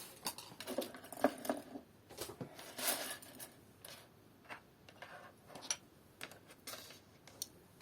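Small craft items being handled and put away on a work table: scattered light clicks, taps and brief rustling at an uneven pace.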